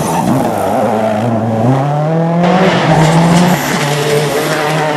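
Rally car engine under hard acceleration on a special stage. Its note climbs steeply over the first two seconds and holds high, with a short dip about three and a half seconds in.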